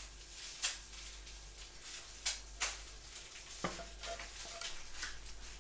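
Wooden spatula scraping fried garlic and oil out of a tilted frying pan, knocking sharply against the pan about four times, over a faint sizzle of the hot oil.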